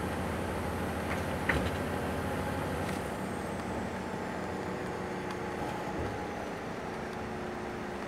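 Steady road noise heard from inside a moving vehicle: tyre and engine rumble, with a short sharp click about one and a half seconds in.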